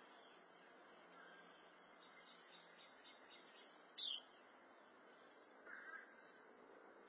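Faint insect chorus: a high-pitched trill in pulses of about half a second, repeating roughly once a second. A single short falling chirp from a bird cuts through about four seconds in.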